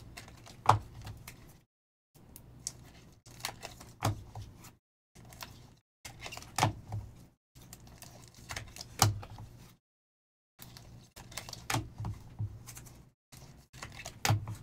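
Trading cards and clear plastic card holders being handled: irregular soft rustling with sharp clicks and taps every second or so, cutting in and out.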